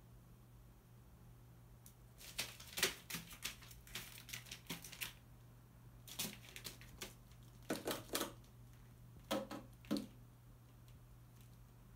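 A crow's feet and beak on newspaper spread over the floor: quick clicking taps and paper rustling in several short clusters, with quiet gaps between.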